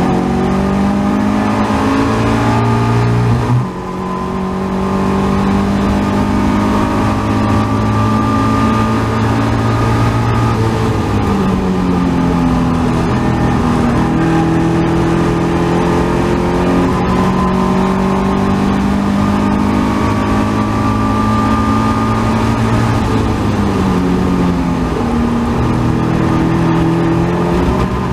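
Caterham Seven race car's 1.6-litre Ford Sigma four-cylinder engine at racing revs, heard onboard with wind rush. The engine note climbs, drops sharply about three and a half seconds in on an upshift, then holds steady and rises and falls with the corners.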